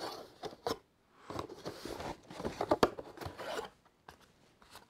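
Cardboard rustling and scraping as hands work a cardboard insert loose and pull it out of a cardboard box, with a few sharp clicks at the start.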